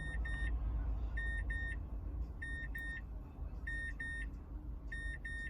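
A car's warning chime beeping in pairs of short tones, one pair about every second and a quarter, over a steady low rumble.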